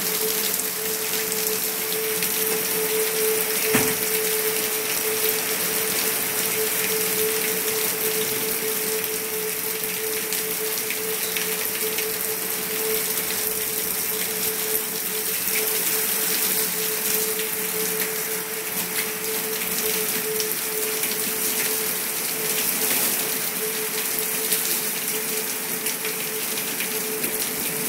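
Heavy rain pouring steadily, with a steady hum underneath and one sharp knock about four seconds in.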